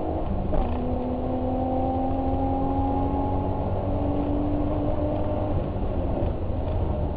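Car engine running under way, its pitch climbing slowly, with a drop in pitch under half a second in and a steady low rumble throughout.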